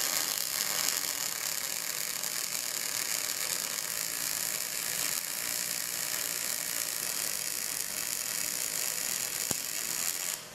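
MIG welding arc on 3.4 mm steel plate, a steady crackling sizzle as the wire feeds at 8.1 m/min at 19.5 V. The arc stops just before the end.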